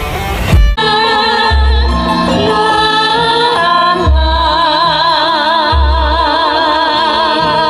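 Music: a dense guitar passage cuts off under a second in, and a song follows, a singer holding long notes with wide vibrato over deep bass notes.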